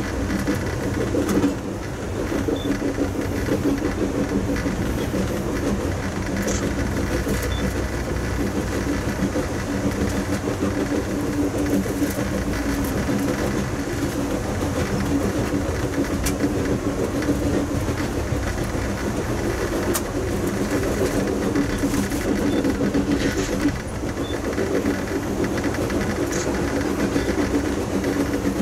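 Passenger train rolling along the track at speed, heard from inside the car: a steady rumble and hum with occasional sharp clicks.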